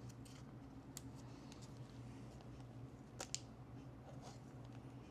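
Quiet room with a steady low hum and a few soft clicks and light handling rustles, the sharpest click about three seconds in.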